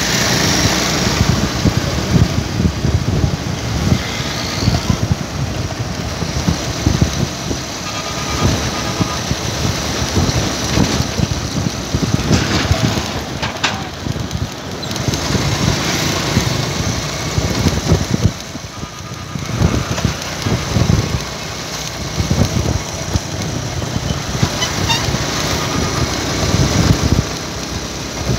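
Engine and road noise of a vehicle being ridden along a road, heard from on board, with a dense fluttering rumble of wind on the microphone. The noise drops briefly about two-thirds of the way through.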